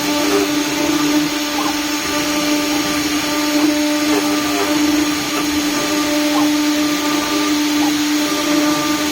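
CNC router spindle running with a steady high whine as it cuts, with small irregular chirps from the bit in the material.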